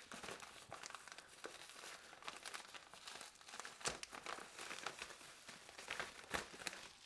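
Pink anti-static bubble wrap crinkling and crackling as it is handled and pulled open, with continuous rustling and many sharp crackles, the loudest about four and six seconds in.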